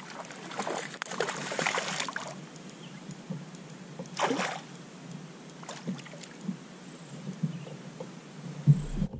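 Splashing and handling noise around a fishing kayak as a small fish is brought in, in short bursts, with a few light knocks and a louder thump near the end.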